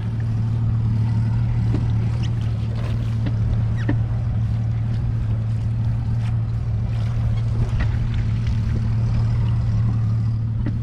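Boat motor idling with a steady low hum, a few faint clicks over it.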